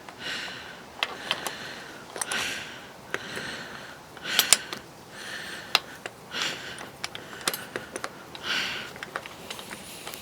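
Sharp metallic clicks and ticks from a bearing puller and its wrench being worked against a seized bicycle crank, whose puller thread is starting to strip. A short breathy hiss comes about every two seconds.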